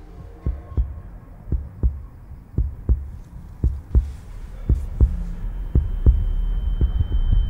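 Film sound design: a fast, heartbeat-like thumping, about three beats a second, with a steady high-pitched ringing tone and a swelling low rumble coming in a little past halfway. It marks a character going under from a drugged drink.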